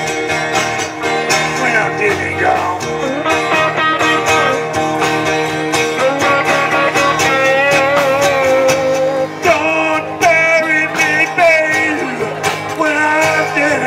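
Live band playing a blues-rock song: electric guitar and strummed acoustic guitar over bass and drums, with a wavering lead melody line in the middle.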